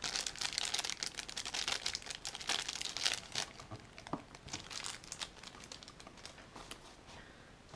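Crinkly blue plastic wrapper being handled and pulled off a camera battery. The crinkling is dense for about the first three seconds, then thins to scattered rustles that die away.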